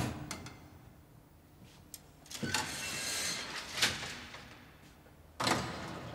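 Steel concertina gate of a goods lift being slid open: a knock, then a rattling, scraping run of metal ending in a sharp clank, and a second rattle of the gate about five seconds in.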